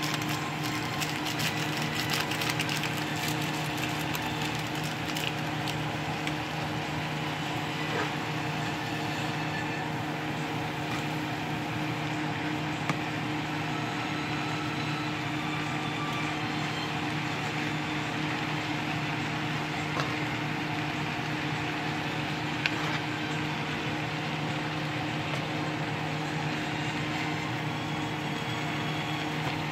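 A steady motor hum with a hiss runs under light clicks and scrapes of a spatula stirring noodles and cabbage in a frying pan. The clicks are thickest in the first few seconds, with a few sharper ticks later.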